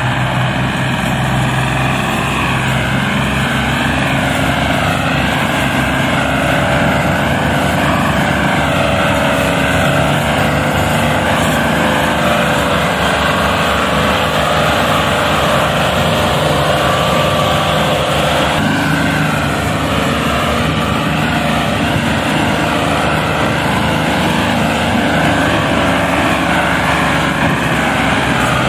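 Ford three-cylinder diesel tractor engine working hard under a heavy load, running loud and steady.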